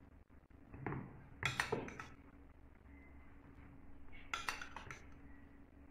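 A metal spoon clinking and scraping against bowls while curd is spooned out of a small ceramic bowl: two short clusters of clinks, about a second and a half in and again past four seconds.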